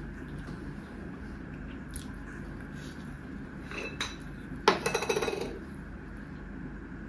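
Glass bottle being handled: a few light ticks, then a sharp clink about two-thirds through followed by a quick rattle of small clicks lasting under a second.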